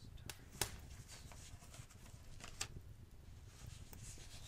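Fireplace fire crackling: a few sharp pops, the loudest about half a second in and another about two and a half seconds in, over a soft low rumble and a faint rustle.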